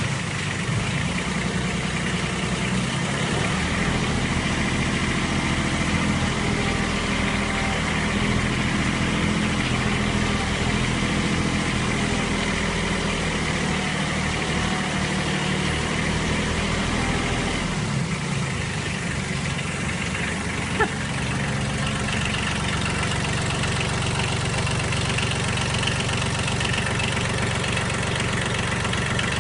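Kubota B8200 compact tractor's three-cylinder diesel engine running steadily at idle; its note shifts about 18 seconds in, and a single sharp click sounds a little before 21 seconds.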